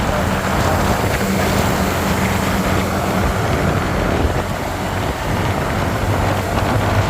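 Road traffic: a heavy vehicle's engine running with a steady low hum under road and wind noise. There is no horn melody.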